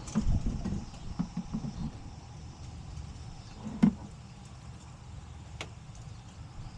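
Handling noises while working on the car: a run of low knocks and clatter in the first two seconds, a sharp click a little before four seconds, and another click at about five and a half seconds, over a steady low hum.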